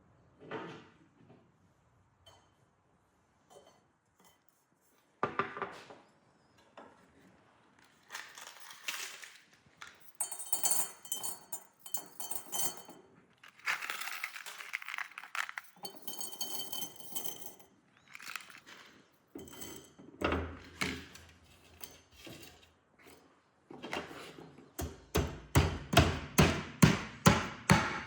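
Small steel parts clinking and scraping against metal, with a high metallic ring at times, then a quick run of sharp metal strikes at about three or four a second near the end.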